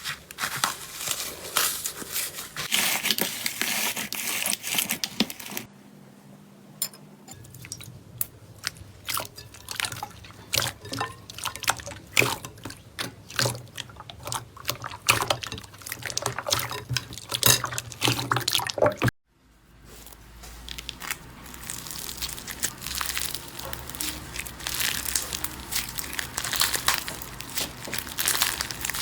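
Slime being squished and poked by hand: a run of wet clicks and pops, densely crackling at first, sparser separate clicks from about six seconds in, then a dense crackle again over the last third.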